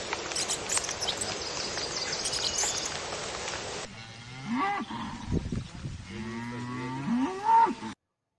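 Cattle mooing: several calls that rise and fall in pitch, starting about four seconds in. Before them there is a steady rushing hiss. The sound cuts off abruptly near the end.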